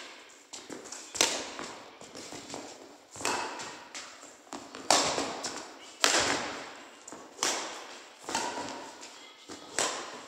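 Badminton rally: rackets striking the shuttlecock in sharp cracks roughly once a second, at an uneven pace, each hit echoing briefly.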